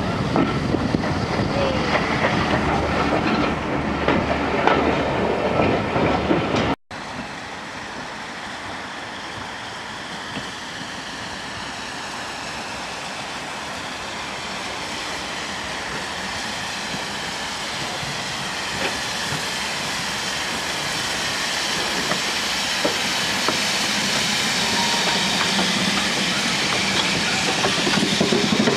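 Steam locomotive, a BR Standard Class 4 2-6-0, running in along the platform: a steady hiss of steam with wheel-on-rail noise, growing steadily louder as it approaches. About seven seconds in, the sound cuts out for an instant after a louder, busier stretch of steam and background noise.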